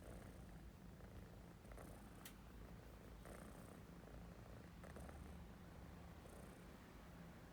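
A kitten purring softly.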